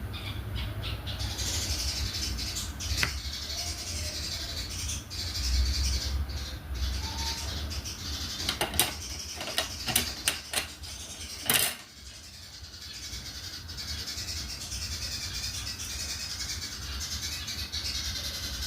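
Diamond painting at work: soft handling and rustling of the drill pen, tray and canvas, with a quick run of sharp plastic clicks about halfway through, over a steady hiss and a low hum.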